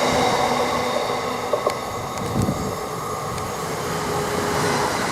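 A train running along the line: a steady rumble with a few sharp clicks a second or two in.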